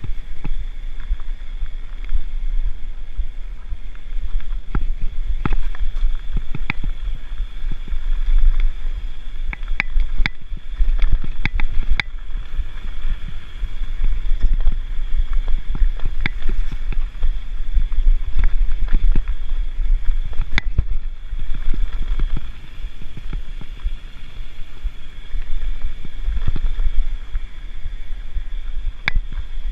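Mountain bike rolling fast down a rocky dirt singletrack: a steady wind rumble on the action camera's microphone, with irregular sharp clatters and rattles as the bike hits rocks and roots.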